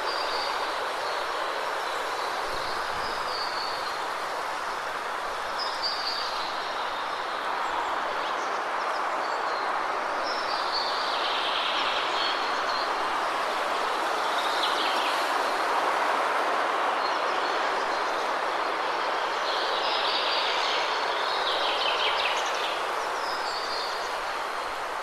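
Steady rush of a waterfall, with birds chirping every few seconds over it.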